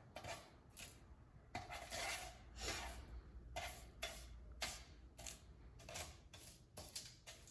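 Spatula scraping under baked zucchini chips on a baking pan, loosening them from the pan: a run of short, faint scrapes, about two a second.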